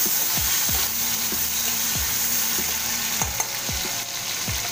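Chopped tomato sizzling in hot oil in a metal kadai, stirred and turned with a flat metal spatula.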